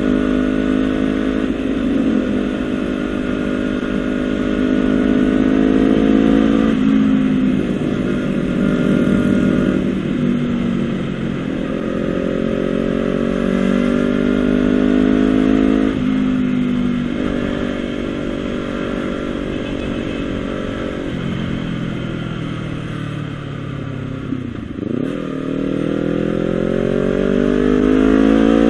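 Honda CBR250RR parallel-twin engine running through a Villan SV1 slip-on exhaust while the bike is ridden under load. The exhaust note climbs slowly for several seconds and then drops suddenly, about four times, as it pulls through the gears.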